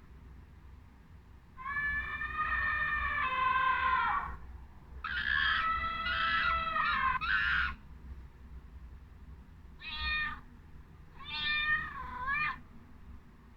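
Domestic cat meowing four times, two long drawn-out meows followed by two shorter ones.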